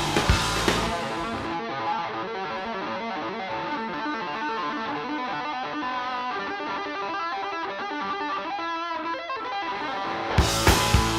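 Rockabilly band playing live: an electric guitar takes an unaccompanied break, a quick run of notes with the drums and bass dropped out. The drums and the full band crash back in near the end.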